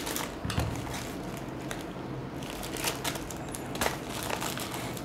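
Plastic poly mailer bag crinkling and rustling as it is cut open with scissors and handled, with irregular sharp crackles and snips.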